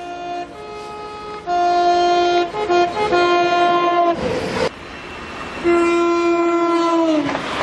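British train's two-tone horn giving several loud blasts on different notes, with a short rush of noise about four seconds in; the final long blast sags in pitch near its end.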